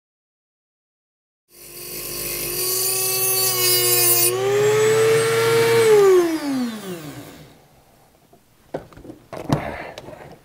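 Dremel rotary tool with a cut-off wheel grinding a slit into a chainsaw's steel muffler cover: a high whine with a harsh grinding hiss. About four seconds in the grinding hiss stops and the whine rises a little, then the tool is switched off and winds down in a falling whine. A few clicks and knocks follow near the end.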